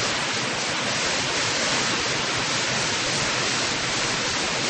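Martin Creek Falls, a mountain waterfall running full, rushing steadily.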